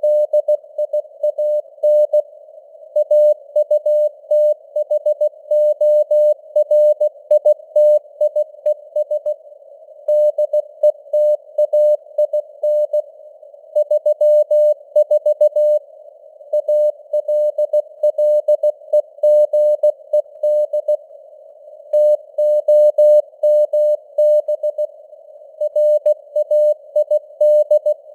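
Morse code (CW) news text sent at 16 words per minute: a single steady tone keyed on and off in dots and dashes, with a narrow band of simulated radio noise hissing around it.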